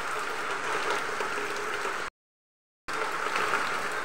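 Steady rain falling, an even hiss. It breaks off into complete silence for just under a second a little after halfway, then carries on.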